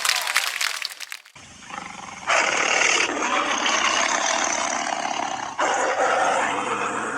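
A loud, rough roar with no clear pitch, starting about two seconds in and going on in two stretches, the second weaker.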